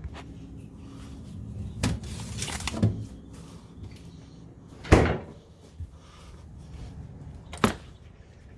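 A few short knocks or clunks over a low steady hum, four in all, the loudest about five seconds in.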